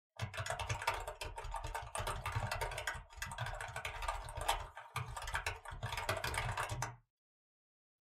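Rapid typing on a mechanical keyboard: a dense run of key clicks, with two brief pauses, that stops abruptly about seven seconds in.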